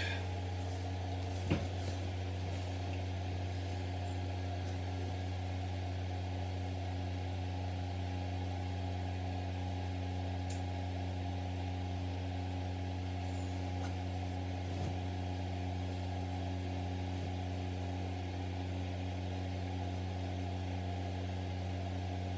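A steady low mechanical hum that does not change, with a small knock about a second and a half in.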